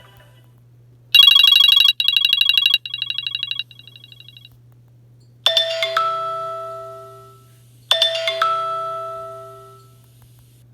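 iPhone ringtones playing through the phone's speaker: a rapid, high pulsing electronic tone that fades in steps over about three seconds, then a chime struck twice, each strike ringing out with a few held bell-like notes.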